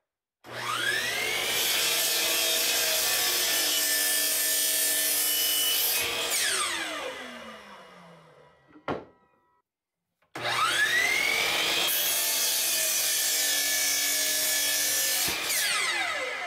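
Hitachi miter saw crosscutting wood to length, twice: each time the motor whines up to speed, runs through the cut for about five seconds, then winds down with a falling whine once the trigger is let go. A single sharp knock comes between the two cuts.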